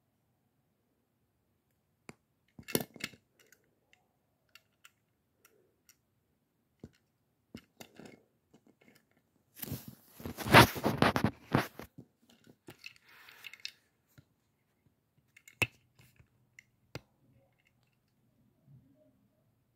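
Handling noises: scattered clicks and taps, with about two seconds of loud rustling and crinkling roughly ten seconds in, and a fainter rustle just after.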